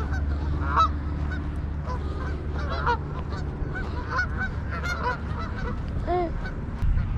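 A flock of geese honking: many short calls, overlapping and repeating, over a steady low rumble.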